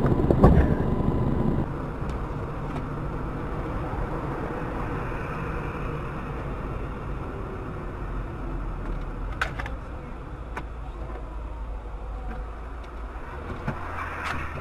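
Car engine and running noise, a steady low hum with a few faint clicks about nine and ten seconds in.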